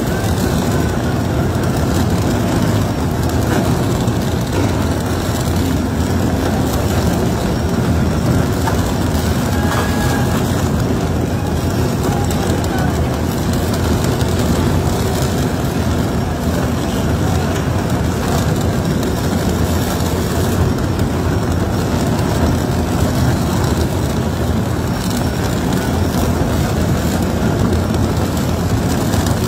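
Tunnel boring machine grinding through the last of the rock face from behind, a loud steady rumble that does not let up, with water from the hoses spraying onto the rock.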